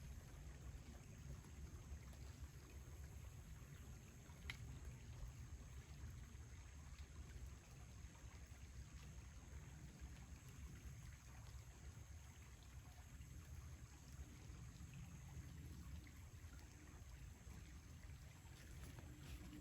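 Faint, steady flowing stream water under a low steady rumble, with one faint click about four and a half seconds in.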